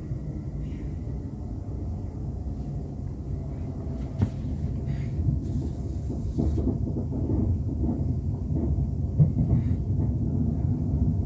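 Rumble inside a Class 350 Desiro electric multiple unit carriage as the train runs. There is a sharp knock about four seconds in and a short hiss a little later, and the rumble grows louder in the second half with scattered clunks.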